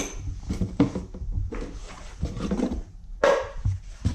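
Tools and parts being handled and rummaged through in a box: irregular knocks, clicks and rustling, the loudest a little over three seconds in.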